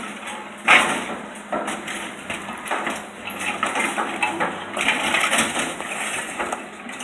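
A scrapped bus body being crushed and torn apart, metal and panels crunching and cracking in irregular bursts, with the loudest crunch about a second in.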